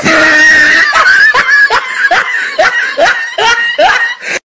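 A loud, high-pitched human vocal outburst, a wail or laugh, breaking into rapid rhythmic pulses about three a second and cutting off near the end.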